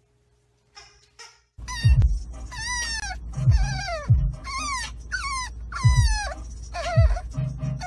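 A French bulldog puppy whining in a series of high, downward-gliding whines, about one a second, starting about one and a half seconds in. A steady low rumble of a moving car runs underneath.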